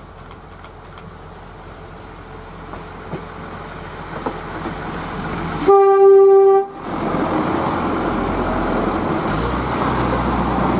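Queensland 2000 class diesel railmotors approaching and passing close by, the engine and wheels on the rails growing steadily louder. About halfway through, one horn blast of about a second on a single steady note. The passing rumble is louder after it.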